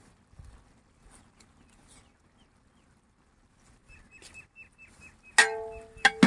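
Metal slotted ladle striking a large aluminium cooking pot three times near the end, each strike a sharp clang that rings briefly. Just before the first clang, a bird chirps a quick run of short high notes.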